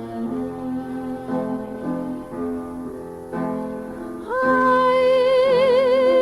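Song recording: an instrumental passage of soft piano-like chords, then about four seconds in a female voice comes in and holds a long note with vibrato, louder than the chords.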